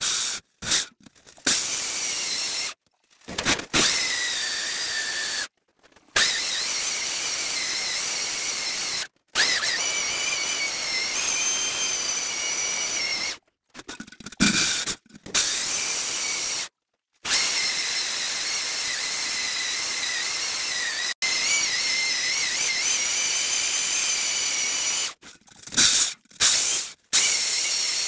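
Hand-held electric diamond core drill with a water-fed core bit boring into a rock wall: a steady grinding hiss with a high, wavering whine, cut off abruptly by several short gaps.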